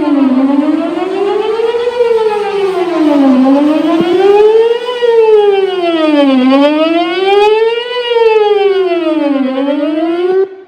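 Outdoor warning siren sounding a wail during a test of the emergency warning system, its pitch sweeping up and down about once every three seconds. It cuts off suddenly near the end.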